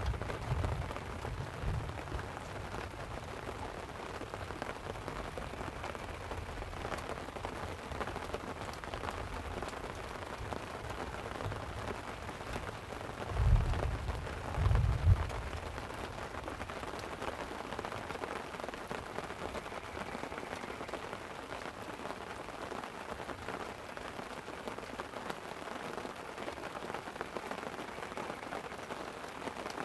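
Light rain pattering steadily on a tent, with two short low booms about halfway through.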